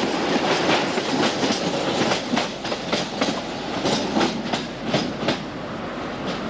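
Narrow-gauge passenger train rolling past and away, its wheels clicking over the rail joints in an uneven clickety-clack that slowly grows fainter.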